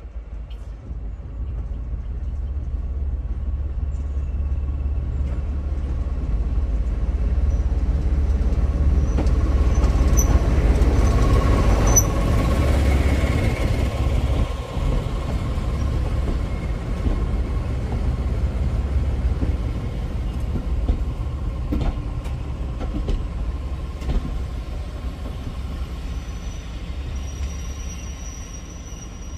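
A Class 14 diesel-hydraulic locomotive running with its Paxman diesel engine as it approaches and passes, growing louder to a peak about ten to twelve seconds in, followed by its coaches rolling past along the rails. A thin high squeal starts near the end.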